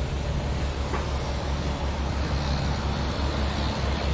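Motor vehicle engine running steadily: a low, even hum with traffic noise over it.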